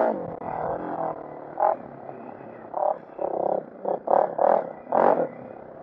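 Single-cylinder four-stroke engine of a Honda CRF450R dirt bike running at low revs under a rider, with a series of short throttle blips, the loudest about five seconds in. The engine has a freshly rebuilt top end, with new rings and a honed cylinder.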